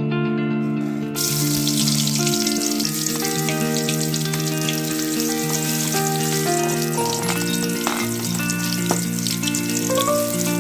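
Food frying in hot oil in a pan, a steady sizzle with crackles that starts about a second in, over background guitar music.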